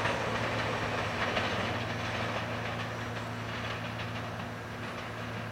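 Budd R32 subway train running away over the switches, wheels clicking on the rail joints, its rumble fading as it recedes. A steady low hum runs underneath.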